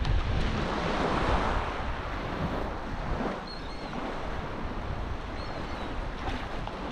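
Shallow surf washing and lapping with wind buffeting the microphone, louder in the first couple of seconds and then steadier. A few faint seabird calls come in past the middle.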